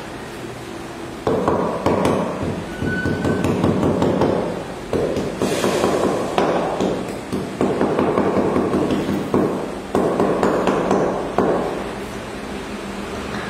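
Quick, rapid tapping of a wooden hammer handle's butt end on terracotta floor tiles, bedding them into wet mortar. The taps start about a second in and come in several bursts separated by short pauses.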